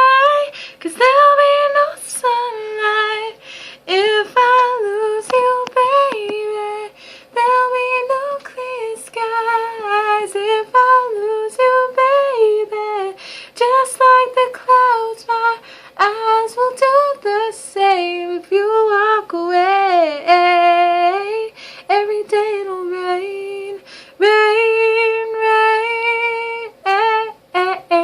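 A woman singing unaccompanied, a pop ballad melody of held notes and melodic runs with few clear words.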